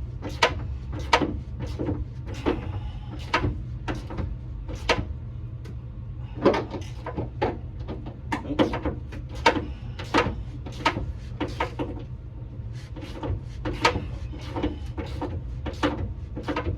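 Hand ratchet wrench tightening a rear shock absorber's mounting nut: a long run of regular ratcheting strokes, about one and a half a second, over a steady low hum.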